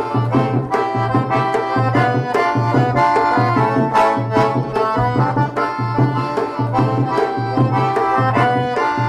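A forró instrumental introduction. A piano accordion plays the melody and chords over a zabumba bass drum beating a steady low pulse about twice a second.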